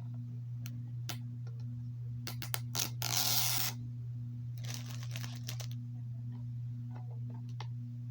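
Plastic packaging being torn and peeled off a DVD case: scattered crinkles and clicks, with two short rips about three and five seconds in. A steady low electrical hum runs underneath.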